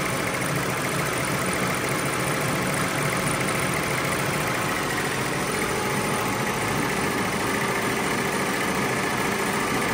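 Two-head ZSK commercial embroidery machine running at stitching speed, its needles sewing a logo into hoodies with a steady mechanical clatter.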